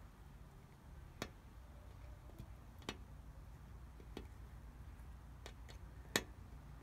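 A handful of light, sharp clicks at uneven intervals, the loudest near the end, as a small screwdriver works the tiny screws on the back of a Garmin vívofit jr 2 kids' fitness tracker.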